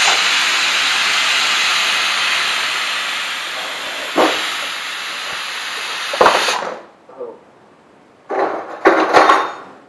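Stovetop pressure cooker whistle venting steam: a loud hiss that starts suddenly and slowly fades over about seven seconds, with a couple of knocks. Near the end comes a second, shorter burst of hiss with clattering. The whistles are counted to tell when the khichdi is cooked.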